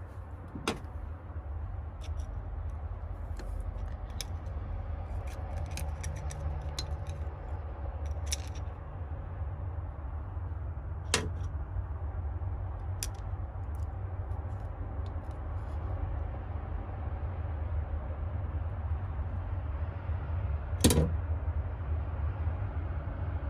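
Scattered sharp metallic clicks and taps of tools and small engine parts being handled on a cylinder head during valve spring removal, with three louder clicks, about 1 s, 11 s and 21 s in, over a steady low rumble.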